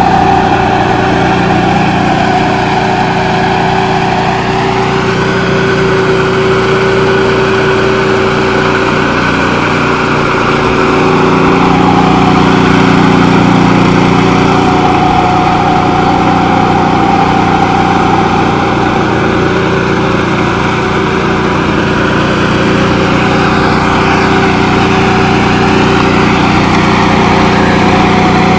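Ride-on power trowel's engine running steadily as its twin rotors float and smooth a fresh concrete slab. It makes a steady drone whose pitch shifts slightly a few times.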